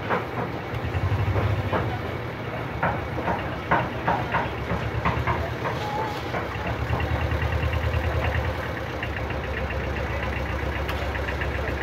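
A low, steady rumble of an idling engine with a pulsing beat runs underneath. Over it, in the first half, come short scratching and clicking strokes of hand-work on a circuit board.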